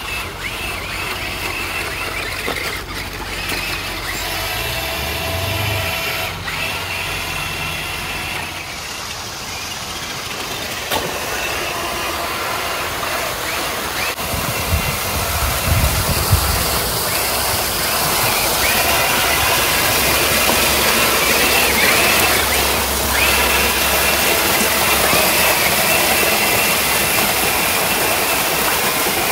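Megalodon Storm amphibious RC truck driving through water: its electric motors whine steadily over the splashing of its wheels. The rush of a waterfall grows louder in the second half.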